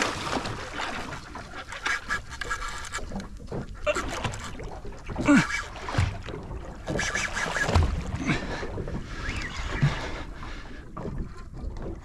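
An angler breathing hard with short grunts while fighting a hooked fish on a heavy rod, over steady wind and water noise around the small boat.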